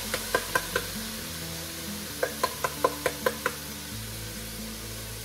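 Hand slapping the bottom of an upturned metal can of tomato sauce to shake the sauce out into a stainless steel pot. It makes two quick runs of sharp metallic taps, about five at the start and about eight more after two seconds, over a steady sizzle of food frying in the pot.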